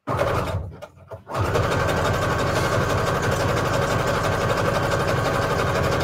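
Electric sewing machine stitching through strips of scrapbook paper: a short run, a brief stop, then running steadily from about a second and a half in.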